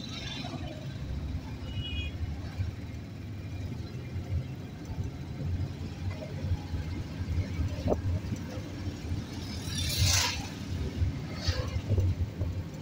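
City street traffic: a steady low rumble of cars and engines, with a louder hissing swell about ten seconds in and a shorter one just after.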